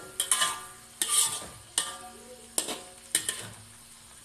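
A metal ladle scraping and knocking against a steel wok as melinjo leaves are stir-fried. The wok rings briefly after each of about six strikes, which stop a little past three seconds in.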